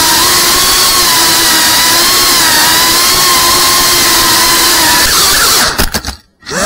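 A small FPV quadcopter's electric motors and propellers whine steadily over the hiss of the props, the pitch wavering with throttle. Near the end a few clicks come, the sound cuts out briefly, then the motors spool back up with a rising whine.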